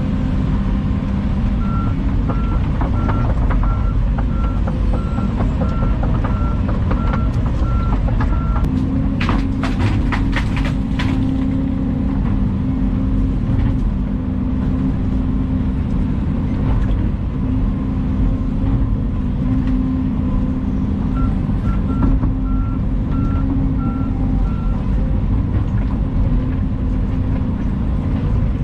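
Volvo EC220 excavator's diesel engine running steadily under load, with a backup alarm beeping about twice a second for several seconds near the start and again later on. A quick run of clanks about nine to eleven seconds in.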